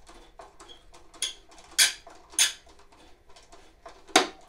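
A screwdriver with a Torx bit working a screw out of a Snapper rider's dash panel: a run of light ticks and scrapes with several sharp clicks, the loudest near the end.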